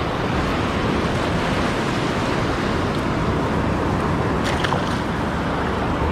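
Shallow surf washing in over the sand: a steady rush of breaking waves and foamy wash.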